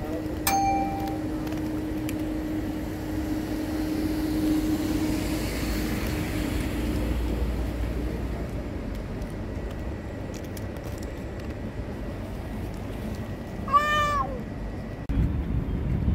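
A cat meows once, a short rising-and-falling meow, near the end, over a steady low background hum.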